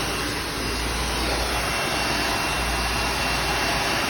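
Panasonic MC-V7325 bagged vacuum cleaner running steadily: an even rush of suction with a thin, steady high whine from the motor.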